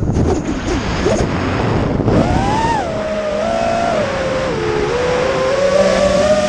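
FPV quadcopter's electric motors whining on the drone's own camera, the pitch rising and falling with the throttle: a sharp climb about two seconds in, then a dip and a slow rise. Before that, wind rumbles on the microphone.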